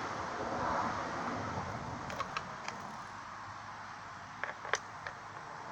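Quiet steady background hiss with a few light clicks and taps, three together about two seconds in and three more near the end; no engine is running.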